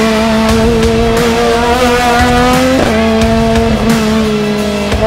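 Rally car engine running hard under acceleration, its pitch climbing slowly, then dropping sharply about three seconds in as it changes up a gear.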